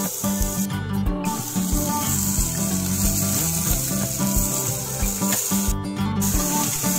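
Background music with a steady beat over the hiss of vegetables sizzling in an aluminium pressure cooker; the hiss cuts out briefly twice.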